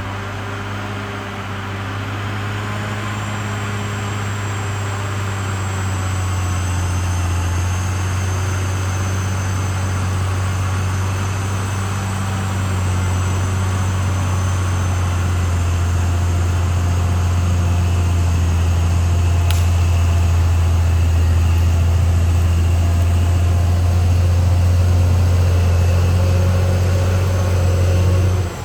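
Diesel engine of a Caterpillar D6R XL crawler bulldozer running steadily under work, a deep drone that grows slowly louder.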